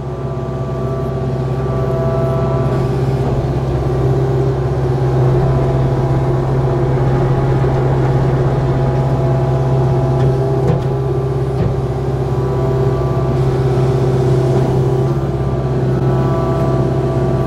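Kubota KX057-4 mini excavator's diesel engine rising in revs over the first couple of seconds, then running steadily under load, with a hydraulic whine over it as the machine works dirt across the trail. There are a couple of light knocks about halfway through.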